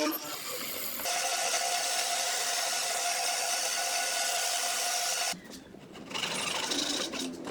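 A power tool working wood, running steadily for about four seconds and then cutting off abruptly, followed by quieter, patchier workshop noise.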